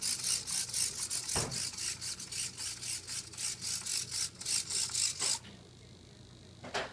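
Hobby servos of a small legged robot whirring in quick, even bursts, about four a second, as its legs step; a single low thump comes about a second and a half in. The whirring stops a little past five seconds, and a short burst of noise follows near the end.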